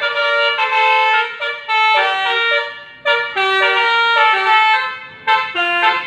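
A bus's Basuri telolet horn, a multi-tone musical air horn, playing a quick tune: several tones sounding together, stepping from note to note in short phrases with brief dips between them.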